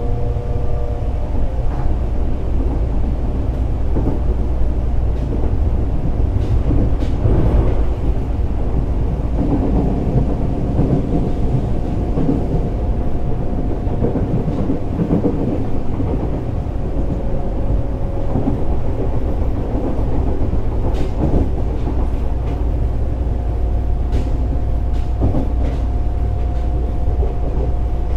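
Fukuoka City Subway 1000N series electric train running on the Chikuhi Line, heard from inside the car: a steady low rumble of wheels on rail with a thin motor whine and a few sharp rail clicks.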